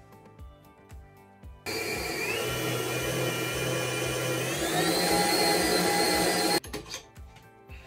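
Electric stand mixer switched on about a second and a half in, whisking thick marshmallow meringue. Its motor whine steps up in pitch twice as the speed is raised, then cuts off suddenly near the end. Background music with a steady beat plays before and after.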